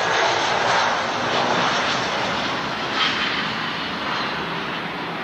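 Jet airliner's engines running loud, an even rush that comes in abruptly, peaks in the first second or two and then slowly fades. A short knock sounds about three seconds in.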